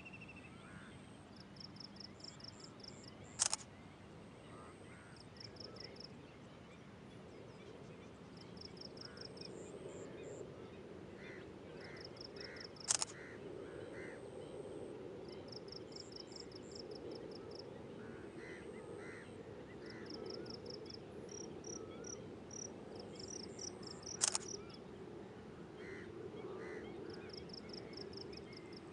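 Rural dawn chorus of frogs, insects and birds: short, evenly pulsed high trills repeating every second or two, with scattered chirps. A low steady hum fills in from about a third of the way through. Three sharp clicks, roughly ten seconds apart, are the loudest sounds.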